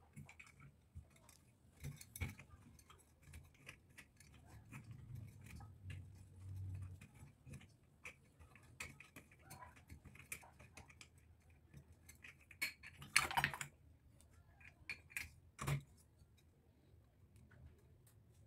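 Small clicks and light metallic taps from hands working inside a chandelier's metal center body, handling its wires and fittings. There is a louder clatter about two-thirds of the way in and a single knock soon after.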